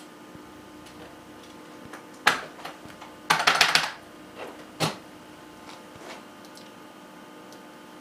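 Buckling-spring keys of a 1993 IBM Model M keyboard clicking. There is a single sharp clack a little over two seconds in, a quick burst of several keystrokes around three and a half seconds, and another clack near five seconds, over a faint steady hum.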